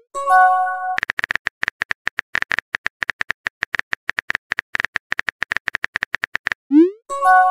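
Phone keyboard tapping sound effect: a rapid run of clicks, between two message-sent sounds. Each sent sound is a short rising swoosh followed by a chime of a few held tones, one at the start and another near the end.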